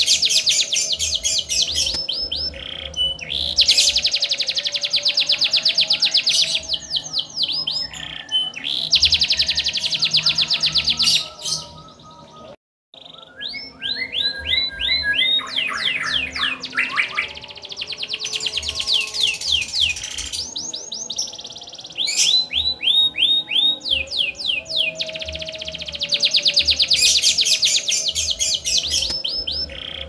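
Domestic canary singing a long, continuous song of fast trills and rolling runs of repeated notes, broken by a short gap near the middle.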